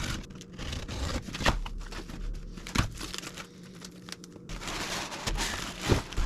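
Packaging crinkling and rustling as it is handled, with short knocks and clicks scattered through.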